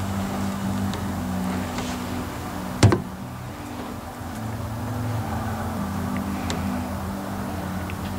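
A single sharp knock about three seconds in, over a steady low hum whose tones shift in pitch.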